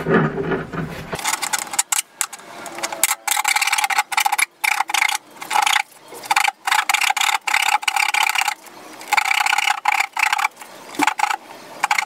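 A hand blade scraping and cutting through a refrigerator's high-impact polystyrene (HIPS) inner liner in repeated, uneven strokes as it works around the edge of a round hole. The strokes are scratchy, each lasting a fraction of a second to about a second, with short breaks between them.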